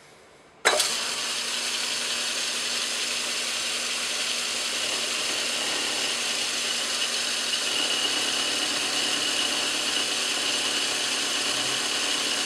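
Craftsman Atlas metal lathe switched on about a second in, then running steadily with its four-jaw chuck spinning: a dense mechanical whir with a constant high whine.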